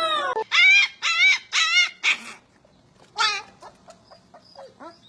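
An animal calling: a falling call, then four short, high, wavering yelps about half a second apart, another about three seconds in, and fainter short yelps near the end.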